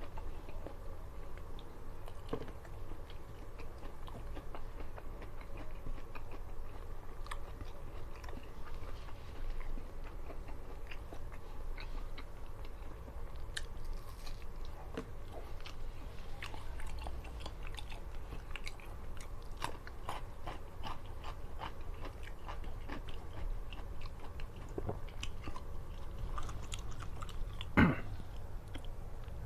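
A person chewing and biting food close to the microphone, a steady run of wet, crunchy mouth sounds. One sharper, louder click comes near the end.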